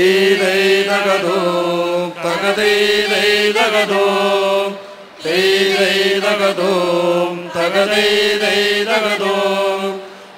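A mixed group of men and women singing a traditional Malayalam song in unison, like a chant, over a steady low drone. The sung lines break off briefly about two, five and ten seconds in.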